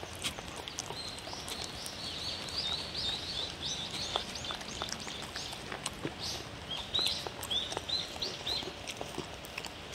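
A dog eating off a paper plate, its licking and chewing making a string of short clicks. In the background a small songbird sings two runs of quick, repeated chirps.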